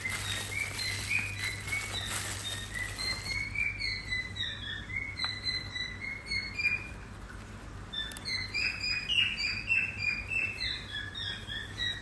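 Small birds chirping in a steady stream of short, high chirps, growing busier about nine seconds in.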